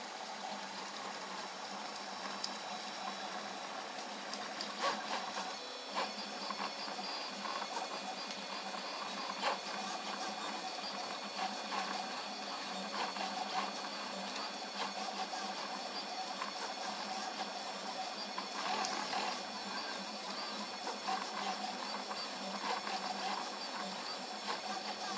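Prusa i3 3D printer at work: its stepper motors buzz through quick back-and-forth moves at 85 mm/s, with frequent small clicks over a steady high tone.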